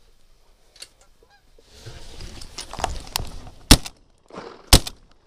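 Shotgun fired twice about a second apart, the two shots being by far the loudest sounds, over a rustle and Canada geese honking.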